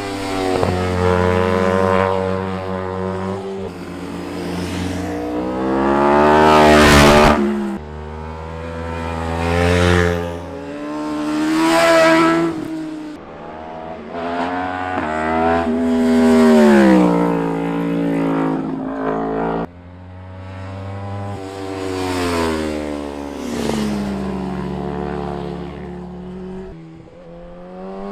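A string of sport motorcycles riding past one after another, each engine revving up through the gears and then dropping in pitch as the bike goes by. The loudest pass comes about seven seconds in.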